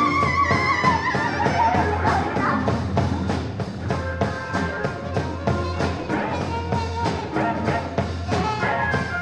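Live improvised psychedelic rock by a large band. A high, wavering held note slides downward over the first two seconds, above a dense mix of instruments and a steady beat of about four hits a second.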